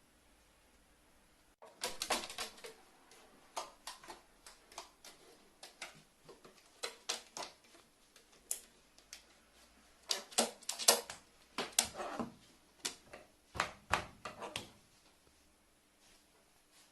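A run of irregular, sharp clicks and taps, some singly and some in quick clusters, starting a couple of seconds in and thinning out shortly before the end.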